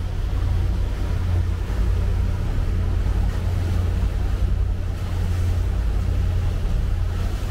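Cabin cruiser underway on calm water: the steady low drone of its engine, with wind and water noise on the microphone.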